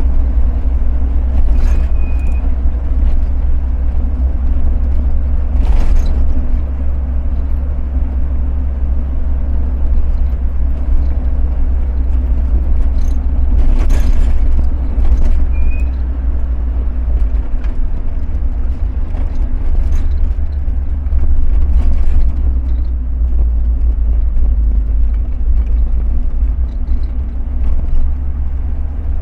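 Vehicle driving along a road: a steady low engine and road rumble, with a few brief sharp noises scattered through it.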